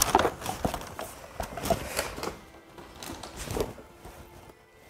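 Brown paper gift bag rustling as a cardboard gift box is pulled out and handled: a quick run of crinkles and light knocks in the first two seconds, then quieter, scattered handling sounds.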